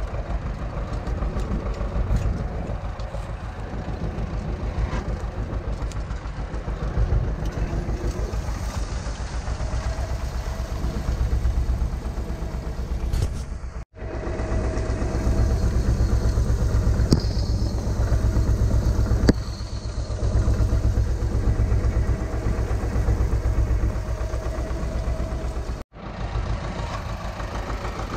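Vladimirets T-25 tractor's two-cylinder air-cooled diesel running under load with an even, fast low pulse while pulling a seed drill, with a few faint knocks from the drill. The sound breaks off abruptly twice, about halfway and near the end.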